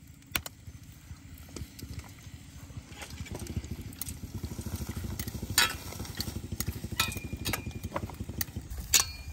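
Tongs stirring vegetables in a metal bowl on a charcoal grill: a few sharp clinks and a brief squeaky scrape of metal against the bowl, over a low fluttering rumble that builds a few seconds in.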